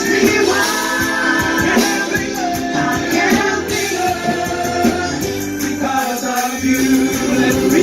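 Worship band playing a song with singers, a steady beat underneath.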